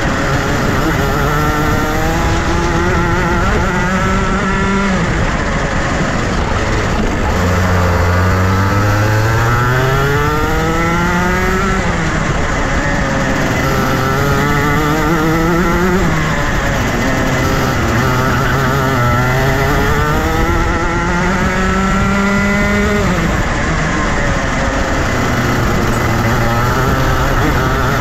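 Junior Rotax kart's 125cc two-stroke engine being driven at speed. The pitch climbs for a few seconds at a time, then drops sharply off the throttle, several times over, as the kart accelerates out of corners and lifts for the next.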